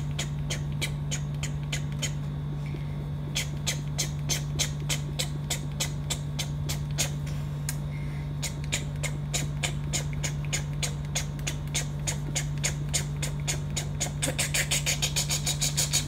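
Oil pastel scratching against paper in short, quick colouring strokes, about three a second, speeding up to a rapid flurry near the end. A steady low hum runs underneath.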